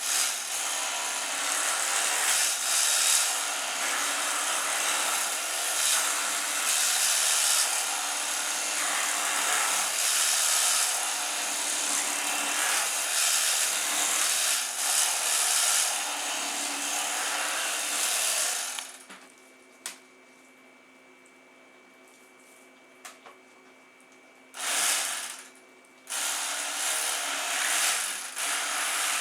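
Electric knife running and slicing through a venison backstrap, a steady motor buzz. It stops for several seconds after about eighteen seconds, comes on in a short burst, then runs again near the end.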